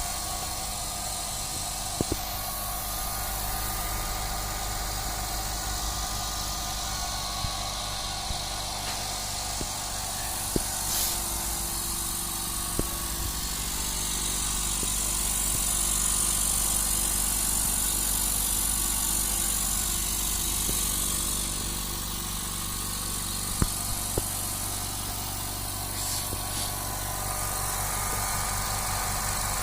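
Dental air compressor with a 30-litre tank running steadily as it pumps air into the tank: an even motor hum with a few light clicks. A high hiss grows louder about halfway through and fades again.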